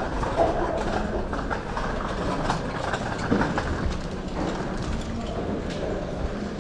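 Footsteps and handheld camera movement over a steady background hubbub in a large indoor market hall, with scattered clicks and knocks and faint distant voices.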